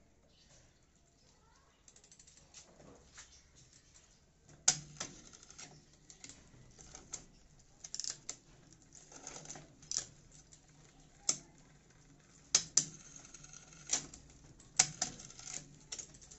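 A mountain bike drivetrain with new microSHIFT 8x3 shifters being tested by turning the crank by hand while shifting gears. The chain runs with faint ticking, and from about a third of the way in there is a string of sharp, irregular clicks and clunks as the shifters index and the chain changes sprockets.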